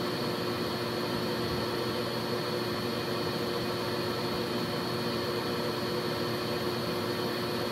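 Aeon Mira 9 CO2 laser engraver running while it engraves: a steady whir with a low hum and a faint high whine as the head sweeps back and forth.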